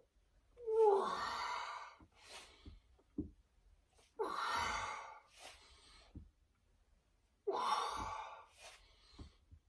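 A man breathing hard as he strains through resistance-band bar repetitions: a loud, heavy exhalation about every three seconds, the first starting with a short groan, with quicker, fainter breaths in between.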